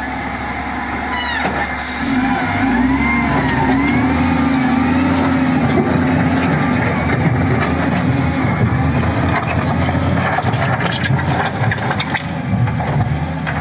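Bulldozer's diesel engine running under load, a steady low drone that grows louder about two seconds in, with high wavering squeals over it.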